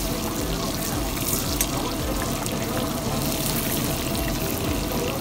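Chicken pieces sizzling steadily in hot oil in a steel karahi, stirred with a steel ladle that clinks against the pan a few times.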